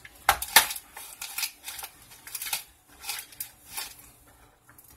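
Handling noises: a string of short, sharp clicks and rustles as plastic parts of a toy ice cream maker and a paper instruction sheet are handled, loudest in the first second and tailing off near the end.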